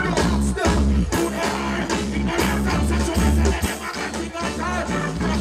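Live reggae band music played loud through a concert PA, with a steady bass-heavy beat and a singer's voice on the microphone.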